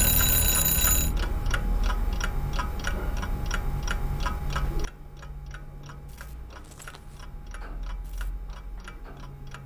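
Twin-bell alarm clock: a high ringing cuts off about a second in, and then the clock ticks evenly, about three ticks a second.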